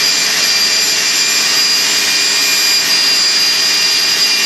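Electric drill spinning a copper wire wheel brush, running steadily with a high whine, used to scrub burnt, charred polystyrene residue off an injection-moulding screw.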